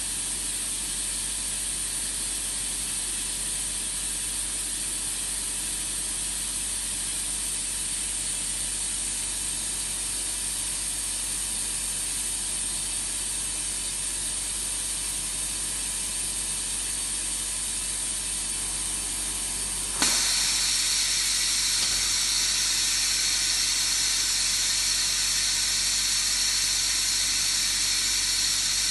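Steady hissing noise with a faint underlying hum; about two-thirds of the way through it suddenly gets louder and lower in pitch, then cuts off abruptly at the end.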